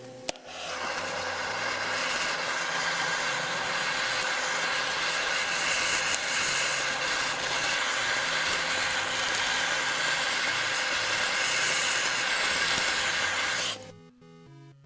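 Microwave oven running: a steady, loud whirring hiss that starts just after a click and cuts off suddenly near the end. Quiet background music plays under it.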